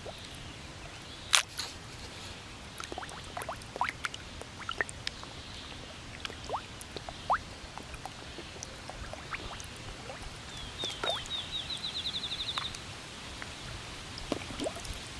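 Koi feeding at the pond surface, slurping and gulping: scattered, irregular wet pops and smacks, the loudest about a second in. About two-thirds of the way through, a rapid run of high chirps lasts about two seconds.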